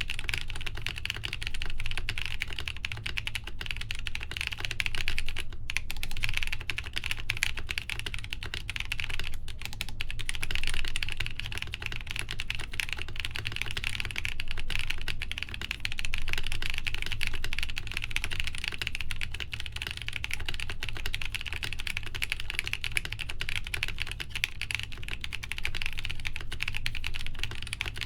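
Continuous fast typing on a BOX 75 mechanical keyboard with lubed Gazzew U4T tactile switches, a polycarbonate plate and Cherry-profile PBT keycaps, with no case or plate foam. The keystrokes run together in a dense clatter, with a couple of brief pauses.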